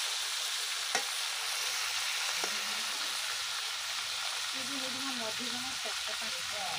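Crab pieces sizzling steadily as they fry in hot oil in an iron kadai, with one sharp tap of the metal spatula against the pan about a second in.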